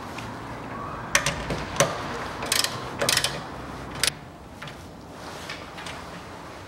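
Ratchet wrench clicking in short strokes as the tie-rod end's nut is run down onto the steering knuckle. The strokes come in bursts and stop about four seconds in, leaving only a few faint clicks.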